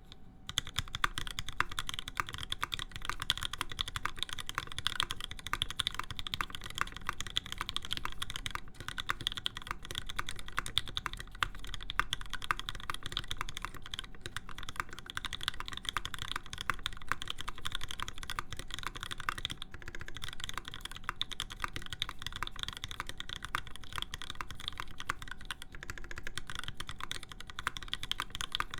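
Fast, continuous typing on a custom mechanical keyboard with lubed Alpaca linear switches, a full aluminium plate and PBT keycaps. It starts right at the beginning as a dense, even stream of keystrokes.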